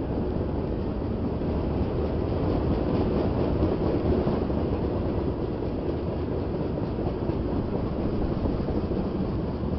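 Freight train tank cars rolling past: a steady rumble of steel wheels on the rails.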